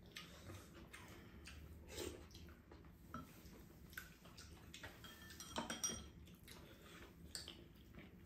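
Faint tabletop eating sounds: spoons and chopsticks knocking and scraping against bowls in scattered light clicks, with a small cluster of sharper clinks a little past the middle.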